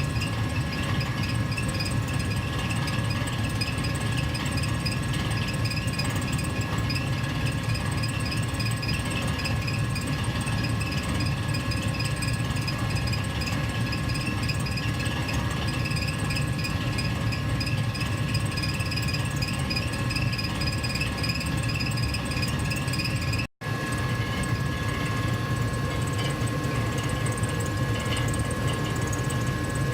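Gas furnace heater running with a steady low hum and airflow whir, with two faint steady whistling tones above it. The sound cuts out for a split second about two-thirds of the way through, then resumes unchanged.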